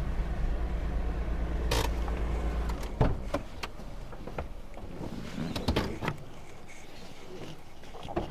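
A steady low rumble that stops about three seconds in, followed by a few scattered clicks and knocks.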